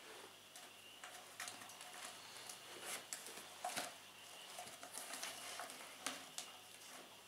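A cat's claws scratching and snagging on a sisal-rope scratching post, heard as faint scattered clicks and rustles, with soft bumps as the post is kicked over and rolled on the carpet.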